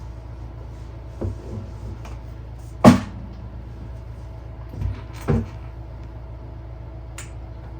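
Several knocks and clunks of objects being handled and set down on a work surface, the loudest a sharp bang about three seconds in, with a small click near the end, over a steady low hum.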